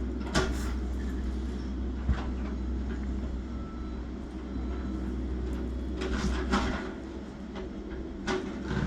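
A small excavator's diesel engine running steadily during a house demolition, with sharp cracks and knocks of the house breaking: one about half a second in, one near two seconds, a cluster around six seconds and another near the end.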